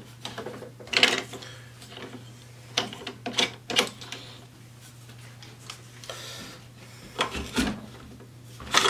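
Plastic parts of a gun vise knocking and clicking as an AR-15 magwell block is pressed into place and an AR-15 rifle is set into the rests: scattered sharp knocks, one about a second in, a quick cluster around three to four seconds, and a few more near the end.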